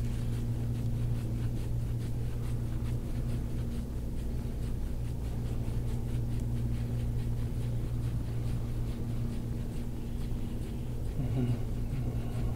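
A steady low hum, with a brief murmured voice about eleven seconds in.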